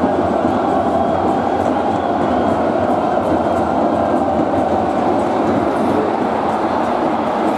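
Crowd in a football stadium, a loud steady din of supporters with no single voice standing out.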